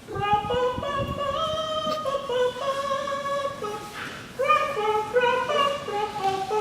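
A man singing unaccompanied, a wordless melody of held high notes that step up and down, with a short breath about four seconds in.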